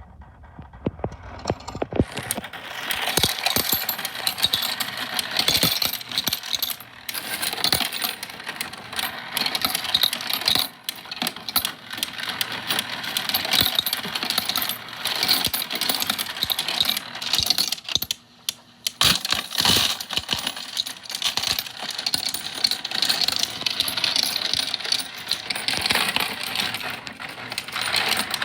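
Electric coin sorter running with coins clattering through it in a dense, continuous rattle that starts about two seconds in, with a short lull near the end.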